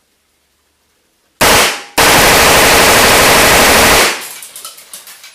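Submachine gun firing fully automatic into a steel bullet trap. There is a brief burst about a second and a half in, then after a short pause a continuous burst of about two seconds, and the room echoes as it dies away.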